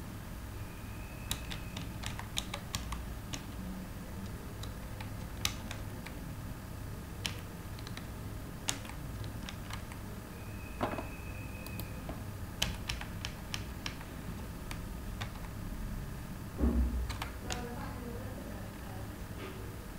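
Computer keyboard being typed on: scattered, irregular keystroke clicks over a steady low hum. A louder dull thump comes about three-quarters of the way through.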